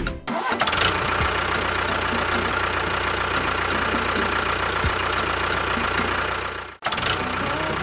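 A mini tractor's small motor running steadily with a high whine. It breaks off for an instant near the end and then carries on.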